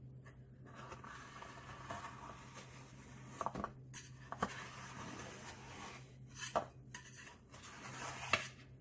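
Metal offset spatula scraping softly around the inside wall of an aluminium cake pan, loosening a baked sponge cake from the sides, with a few light clinks of the blade against the pan rim. A steady low hum runs underneath.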